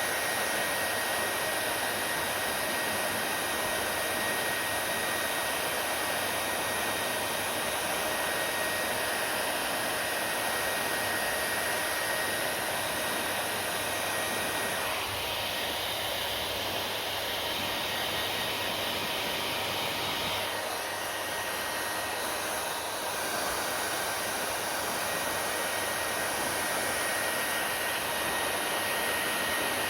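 Hair dryer running: a steady blowing hiss with a faint, constant whine. The tone of the hiss shifts slightly about halfway through, and again a few seconds later.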